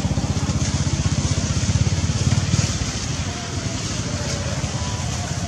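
An engine running with a fast, steady low pulse, louder for the first couple of seconds and easing off a little about halfway through.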